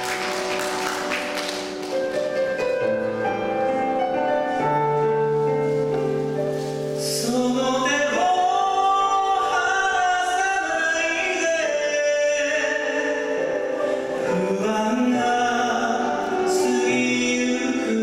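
Karaoke backing track opening with sustained chords, then a man singing a Japanese ballad into a microphone over it from about eight seconds in.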